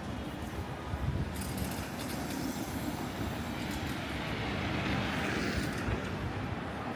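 Outdoor street ambience: a steady low rumble, with a hiss that swells about four seconds in and eases off near the end.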